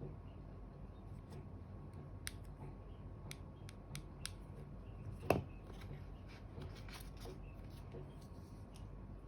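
Scattered small clicks and rustles of packaging and small parts being handled during an unboxing, with one louder knock about five seconds in.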